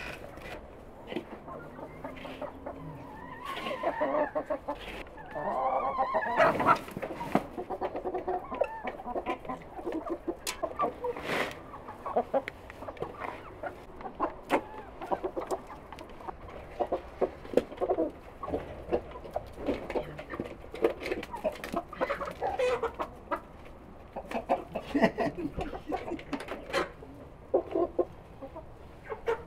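Chickens clucking, with many short calls scattered throughout and a louder, longer call about six seconds in.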